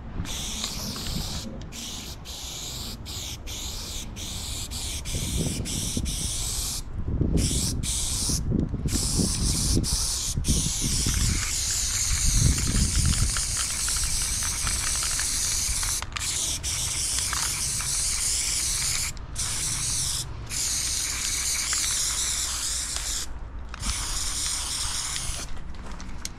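Aerosol spray-paint can hissing as paint is laid onto the side of a train carriage. It starts as a quick run of short bursts, then settles into longer strokes broken by a few brief pauses.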